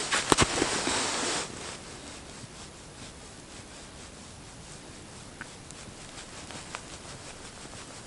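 Rustling of a winter jacket as the arm moves, with a few sharp clicks about a third of a second in, stopping after about a second and a half; then a quiet steady outdoor hush with a couple of faint ticks.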